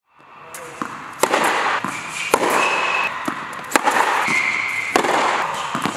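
Tennis balls struck by racquet strings and bouncing on an indoor hard court: a string of sharp pops that echo around the hall, with a couple of brief high squeaks in between.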